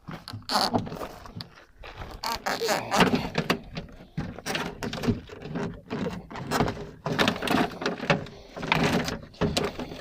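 Irregular clicks, knocks and scraping as parts of a Ford XF Falcon ute's door are handled and pushed into place during reassembly.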